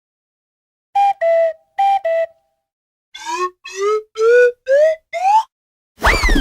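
Cartoon whistle sound effects: a short high-low two-note toot played twice, then five quick upward-sliding whistle notes, each pitched higher than the one before. Near the end a loud falling whistle begins, with a thud beneath it.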